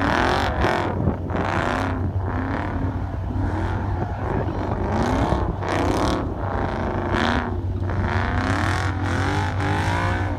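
A car engine revving up and down over and over, its pitch repeatedly rising and falling over a steady low drone.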